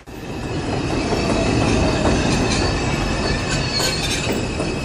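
New York City subway train running along the track, steel wheels squealing high over the rumble of the rails. It starts just after a brief dropout.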